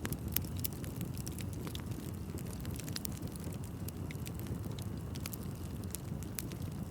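Bonfire of burning wood crackling: a steady low rumble of the flames with frequent irregular sharp pops and snaps.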